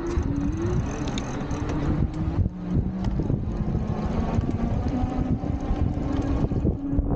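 Wind buffeting the microphone while riding an electric bike, a dense low rumble, with a steady hum underneath that drops in pitch about two and a half seconds in and then climbs back up.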